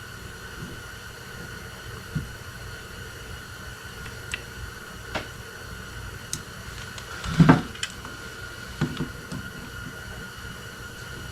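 Scattered small clicks and taps of carburetor parts being handled and taken apart, with one louder knock about seven and a half seconds in, over a steady faint hum.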